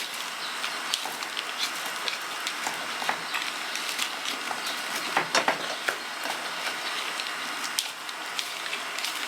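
Orchid bark and potting soil being stirred together: a steady gritty rustle full of small clicks from the bark pieces.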